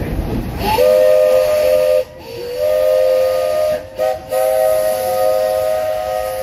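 Steam locomotive's chime whistle blowing three blasts: a chord of several notes held steady, with short breaks about two and four seconds in.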